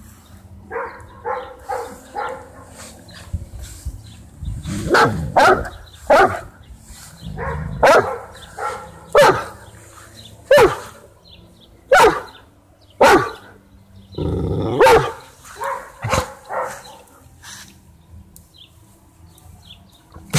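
Great Dane barking: a few softer short yips about a second in, then about ten loud barks spaced roughly a second apart, the last one near the end slightly longer.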